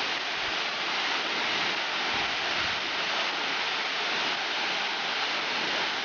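Steady rushing of a waterfall pouring into its pool.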